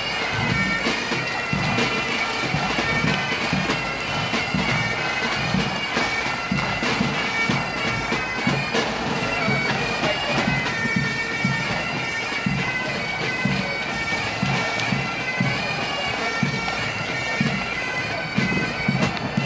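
Bagpipes playing a march over their steady drone, with a low beat about twice a second.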